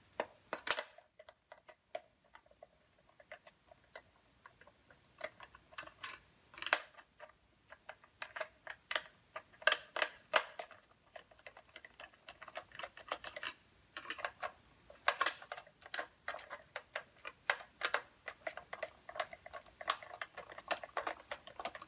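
Small Torx screwdriver turning screws out of a plastic appliance housing: a run of irregular light clicks and ticks from the driver bit and the screws.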